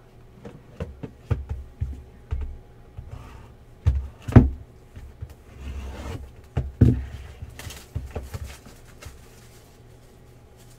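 Shrink-wrapped cardboard trading-card box being handled and cut open with a pocket knife: a run of knocks and thumps as it is picked up and set on the mat, the loudest about four seconds in, with short bursts of plastic rustle as the blade slits the wrap and the lid comes off.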